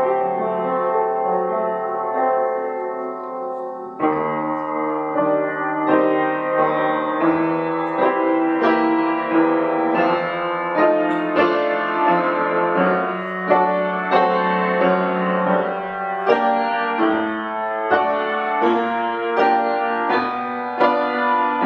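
Piano played: a held chord dies away over the first few seconds, then a new phrase begins about four seconds in, with notes and chords struck at a moderate pace.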